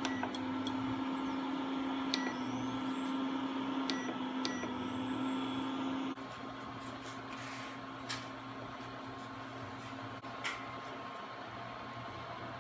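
Duxtop induction cooktop running with a steady electrical hum and cooling-fan noise under a stainless steel pan. Short beeps sound as its control buttons are pressed to change the setting, and the hum drops in level about six seconds in.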